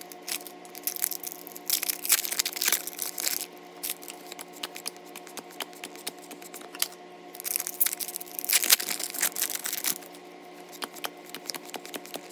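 Foil booster-pack wrapper crinkling and tearing in two louder stretches, about two seconds in and again about eight seconds in, among light clicks of trading cards being handled, over a faint steady hum.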